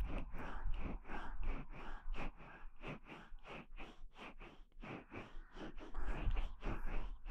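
Fingers rubbing and kneading the ear of a KU100 binaural dummy-head microphone for ear-massage ASMR: an uneven run of soft rubbing and brushing strokes, several a second.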